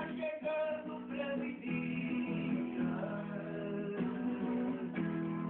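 Acoustic guitar being strummed and picked, playing a steady run of chords and melody notes.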